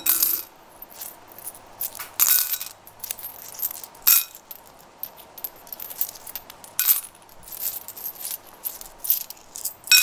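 Loose metal coins clinking irregularly against one another as they are picked up off a table and gathered together.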